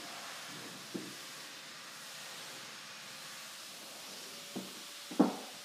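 Footsteps on the bare floor of a house under construction: a few dull thumps, the loudest near the end, over a steady hiss.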